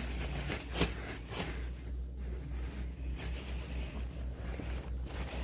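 Shopping bag rustling and crinkling as DVD cases are handled and put into it, with a sharp crinkle about a second in. A steady low hum runs underneath.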